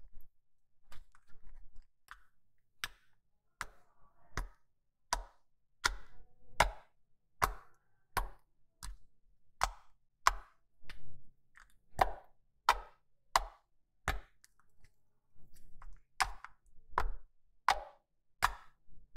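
Green shampoo-and-flour slime being pressed and poked with fingertips on a glossy tabletop. It makes a steady run of sharp, sticky clicks and pops, a little more than one a second.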